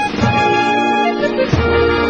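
Background music: sustained keyboard chords, changing to a new chord about one and a half seconds in.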